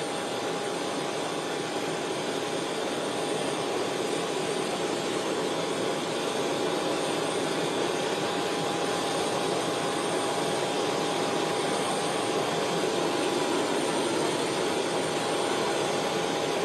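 Steady rushing whine of a parked jet airliner running on the apron, with one steady pitched tone held through it.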